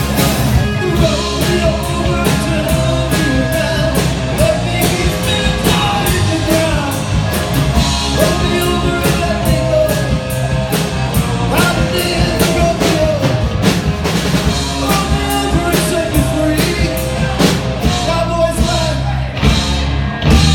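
Rock band music with a steady drum-kit beat and bass.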